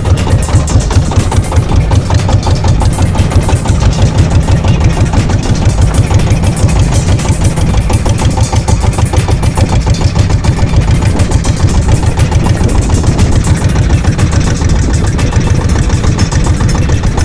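Small fishing boat's engine running steadily at constant speed, with a fast, even pulsing beat.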